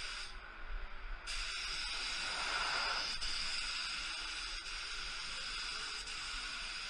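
ITALCO Shine 1 HVLP gravity-feed paint spray gun hissing steadily as it atomizes paint. The hiss eases off for about a second near the start, then resumes.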